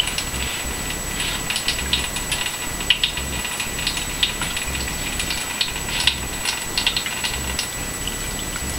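Tap water running from a faucet in a thin steady stream, with irregular spattering and crackling through the middle.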